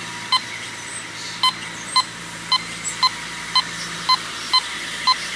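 Teknetics Omega 8500 metal detector beeping as its coil is swept back and forth over a buried target: about ten short beeps of the same pitch, roughly two a second. The signal marks a target reading in the dime-to-quarter range that now and then drops to zinc.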